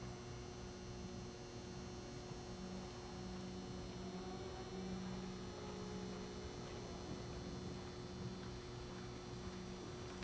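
A steady low hum, with a deeper drone that pulses on and off in stretches of about half a second to a second.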